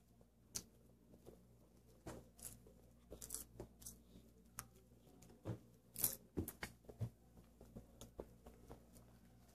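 Faint, irregular crunching and crackling of popcorn being picked up and chewed, with scattered sharp clicks; the loudest comes about six seconds in.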